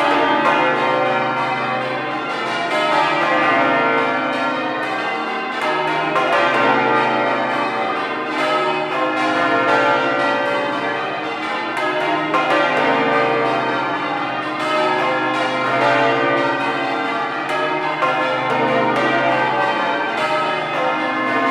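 Change ringing on Exeter Cathedral's ring of twelve church bells, with a heavy tenor of about 72 hundredweight. The bells strike one after another in an unbroken stream of overlapping tones, the loudness swelling and easing every two to three seconds.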